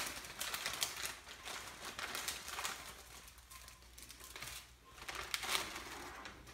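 Plastic instant-ramen packet crinkling as it is torn open and handled, and the dried noodle block is pulled out, with irregular scratchy rustles throughout.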